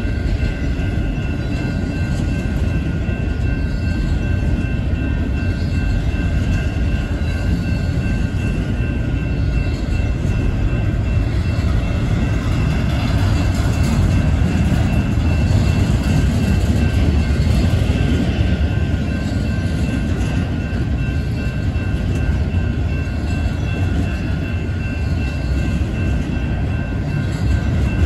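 Double-stack intermodal well cars rolling past at speed, their steel wheels on the rails making a continuous heavy rumble. A steady high ringing runs over it the whole time.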